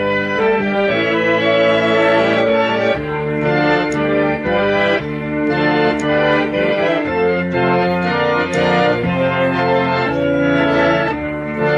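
Harmonium (pump reed organ) playing sustained chords over a low held note, the chords shifting every second or so.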